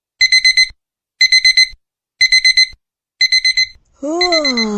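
Digital alarm clock beeping in quick groups of four high beeps, one group about every second. About four seconds in, a long drawn-out voice begins under the last beeps.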